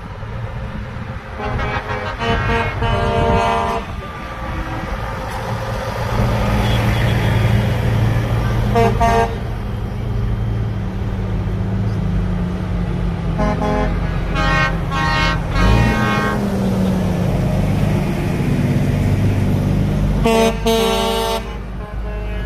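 Truck horns blasting four times, a long blast, a short one, a broken one and a final one, over the steady low running of heavy truck engines going past. Midway one engine revs up briefly.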